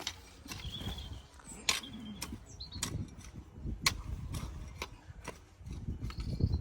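Hand tool chopping weeds and drawing soil up around potato plants in a furrow: irregular sharp clicks and knocks over a low rumble.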